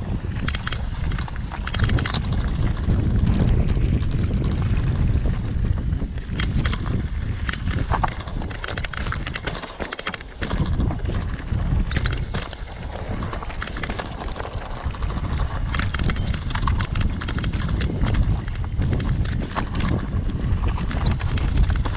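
Mountain bike riding down a rough natural trail: wind buffeting the microphone and tyres rolling over stones, with frequent sharp rattles and knocks from the bike. The noise eases briefly about ten seconds in.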